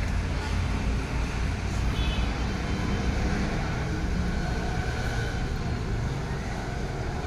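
Steady low rumbling noise, with no distinct events standing out.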